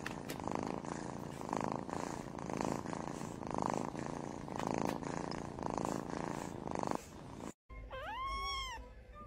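Domestic cat purring in swells that rise and fade about once a second, mixed with the scratch of a grooming brush drawn through its fur. Near the end a kitten gives one meow that rises and falls.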